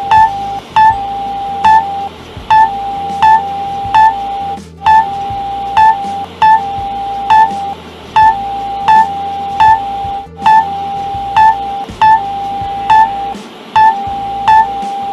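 Emergency alert tone: a steady electronic tone broken by short, loud beeps about every three quarters of a second, with music underneath.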